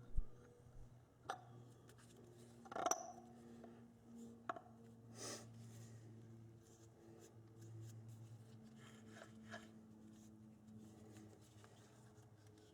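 Faint scattered clicks and taps of small metal parts being handled and fitted together while an air impact wrench's vane motor is reassembled, the loudest near the start and about three seconds in. A steady low hum runs underneath.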